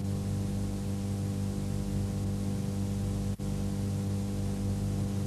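Steady electrical mains hum, a buzzy drone with a stack of even harmonics, cutting out for an instant about three and a half seconds in.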